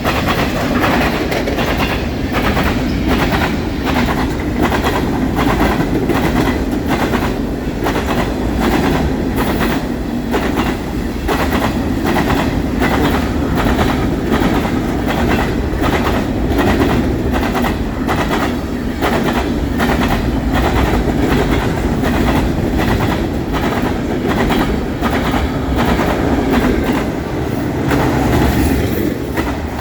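Freight train cars rolling past at speed, a steady rumble with the wheels clacking in an even rhythm as they cross the rails.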